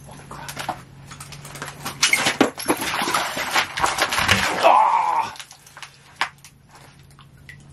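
Clattering and rustling of gear and clothing as an ice angler scrambles up from his seat to grab the rod, loudest from about two seconds in to just past five, with a brief drawn-out wavering cry near the end of the scramble. A steady low hum runs underneath.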